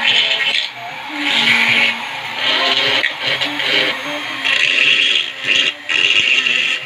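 Flexible-shaft rotary tool grinding a skull helmet's sculpted shell, the bit running against the surface in repeated passes of about half a second to a second each.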